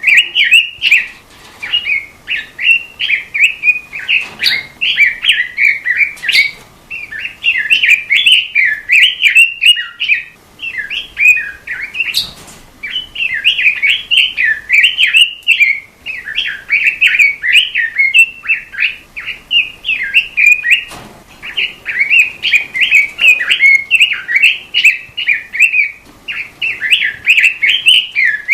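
A songbird kept as a 'robin' in Indonesian bird-keeping sings a fast, high warbling song of rapid notes. The phrases last a few seconds each, with short pauses between them.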